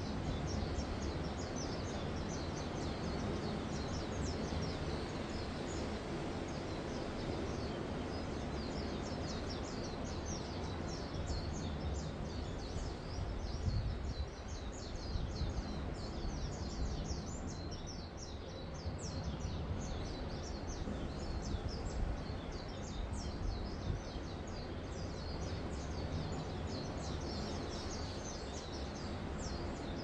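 Steady rush of small waves washing onto a sandy beach, with many birds chirping over it throughout.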